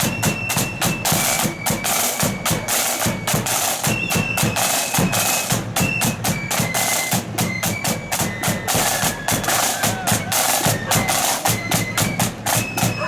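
Marching flute band playing: flutes carry a stepping melody over snare and bass drums beating a steady march rhythm.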